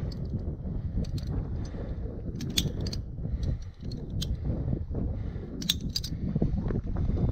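Metal climbing gear clinking several times, carabiners of a via ferrata set knocking and sliding, over a steady low rumble.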